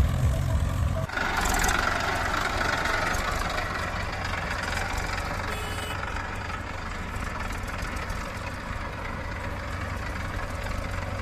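Heavy diesel engine idling steadily, the machine standing at rest. A louder sound cuts off abruptly about a second in, leaving only the engine.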